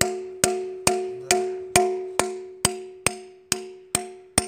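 Steady hammer blows, about eleven at a little over two a second, on a punch driving through an oil-passage plug in a YaMZ-238 crankshaft. The steel crankshaft rings after each blow.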